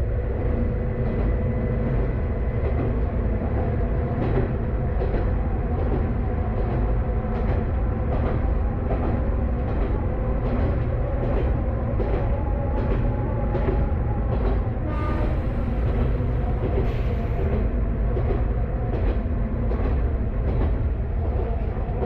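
Kanto Railway KiHa 532 diesel railcar under way, its diesel engine droning steadily, with rail-joint clicks coming every second or so. About two-thirds of the way through there is a high hiss lasting a couple of seconds.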